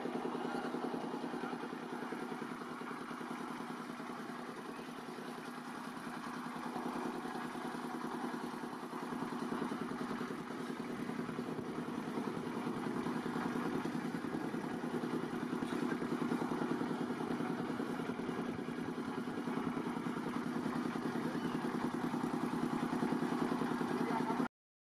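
An engine running steadily at a constant speed, a low hum with fast, even firing pulses; it stops abruptly near the end.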